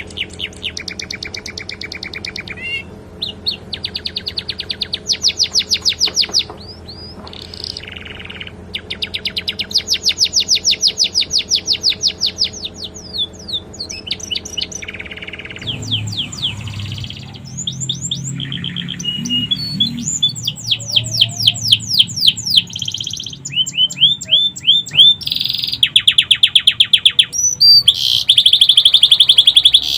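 Domestic canary singing in long, fast trills of rapidly repeated high notes, in phrases of one to three seconds with short gaps, its song filled in with phrases learned from the sikatan londo. A low steady hum runs underneath for about the first half.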